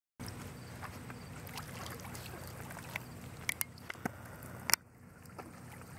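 Water sloshing and splashing as a Siberian husky wades and paddles out through a lake, with a few sharp clicks about three and a half and nearly five seconds in.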